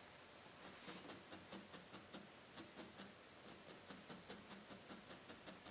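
Faint, quick pokes of a felting needle stabbing into wool, about three a second.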